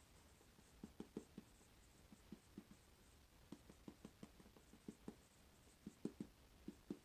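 Marker pen writing on a small whiteboard: faint, irregular short strokes and taps.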